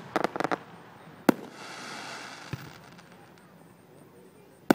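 Aerial fireworks bursting: a rapid run of sharp pops in the first half second, one loud bang about a second in followed by a second and a half of hissing crackle, and another bang near the end.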